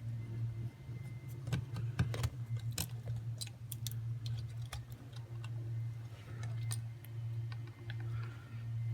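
Scattered light clicks and clinks of small metal hardware being handled at an electrical outlet, the outlet and its screws, heard over a steady low hum.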